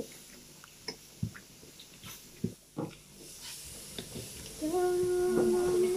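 Meat sizzling as it cooks on a grill, with light clicks and taps of utensils. The sizzle grows louder about halfway through. Near the end a steady held tone sounds for over a second.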